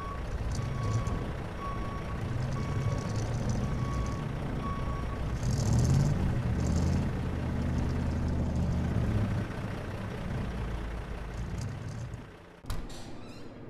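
Heavy diesel truck running, its reversing beeper sounding about every 0.8 seconds until it stops about five seconds in. The engine grows louder from about six to nine seconds, with short hisses of air, and a sudden knock comes near the end.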